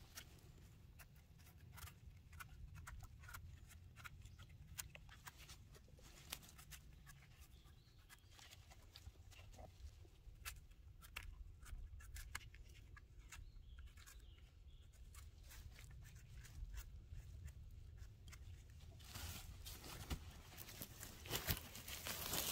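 Faint crackling and scratching of dry forest litter being disturbed, in many scattered small clicks over a low rumble, growing denser and louder near the end.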